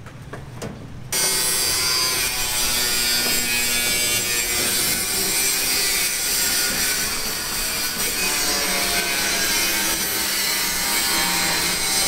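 A power tool running and cutting steadily, a continuous harsh grinding-whirring noise that starts suddenly about a second in and holds at an even level.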